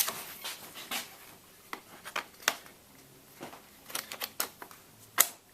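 Scattered plastic clicks and knocks as a battery pack is handled and fitted into an HP Mini 210 netbook, the loudest about two and a half seconds in and again near the end.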